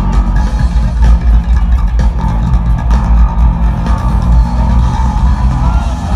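Live rock band playing loud, with the electric bass guitar to the fore and a heavy low end, recorded from within the audience.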